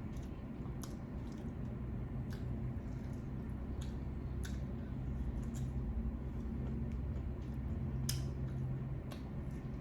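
Wet squishing and scattered small clicks as saucy seafood boil is handled by hand, shells tapping, over a low steady hum.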